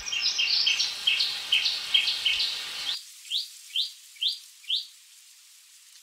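Shrike-babbler singing a series of short rising notes, about two a second. The background hiss cuts out abruptly about three seconds in, and the song stops about five seconds in.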